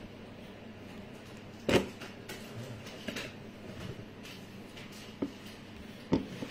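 Quiet room with one sharp knock a little under two seconds in, the loudest thing here, and a few fainter clicks and taps later on.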